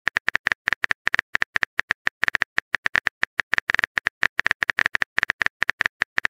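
Phone keyboard typing sound effect: a rapid, uneven run of short key clicks, about nine or ten a second, as a text message is typed out.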